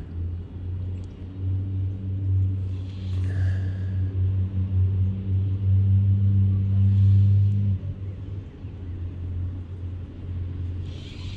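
Low, steady engine drone that grows louder and then stops suddenly about eight seconds in.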